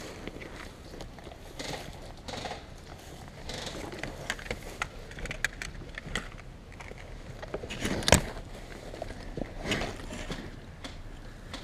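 Handling and movement noise from an airsoft player's gear: irregular rustling and scattered clicks, with one sharp knock about eight seconds in.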